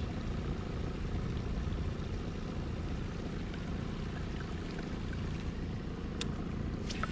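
Boat outboard motor running steadily with water noise around the hull, and a single faint click about six seconds in.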